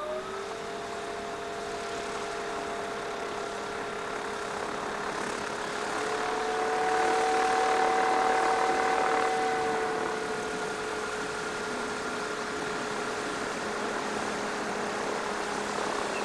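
Pipistrel Velis Electro's electric motor and propeller running at taxi power: a steady whine of several tones. Midway it grows louder and slightly higher for a few seconds, then eases back.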